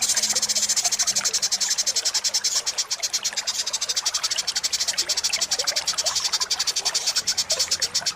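A high, fast, evenly pulsing insect trill, about ten pulses a second, runs without a break, with many short chirps scattered lower down.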